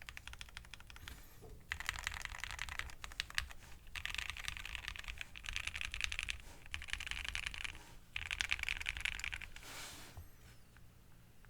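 Fast typing on a Keychron Q1 mechanical keyboard with lubed Cannonkeys Lavender linear switches, a POM plate and PBT keycaps, in several quick bursts with short pauses, tailing off near the end.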